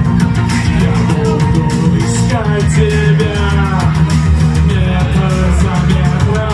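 Loud live synth music with a heavy, steady bass and a fast beat, with a voice singing over it.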